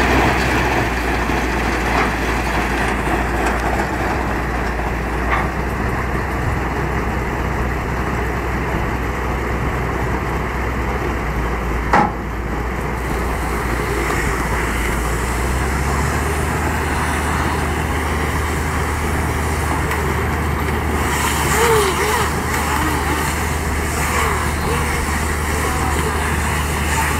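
Case Maxxum 125 tractor running steadily while driving a baler-wrapper that wraps a round bale in film. A single sharp knock comes about twelve seconds in, and about sixteen seconds in the low hum shifts up in pitch.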